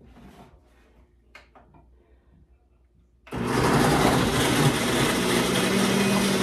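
Countertop blender switching on about three seconds in and running steadily, blending pineapple chunks. Before it starts there are only faint handling clicks.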